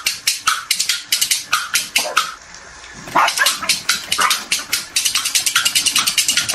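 A dog giving short, high calls among a fast run of sharp clicks or scratches, about eight to ten a second, with a brief lull about halfway.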